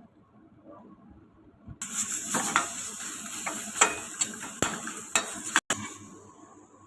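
Stir-fry sizzling in a hot pan, with a spatula scraping and knocking against the pan as it is stirred. It starts about two seconds in and dies down near the end.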